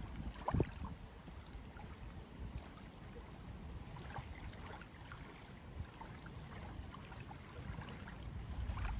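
Faint river water lapping at a gravel shore, with a low rumble of wind on the microphone and a few light ticks.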